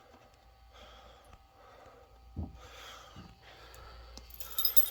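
Quiet handling noise of a break rod being fitted into a fire alarm pull station: faint rustles, a dull knock, then a quick cluster of sharp clicks and rattles near the end.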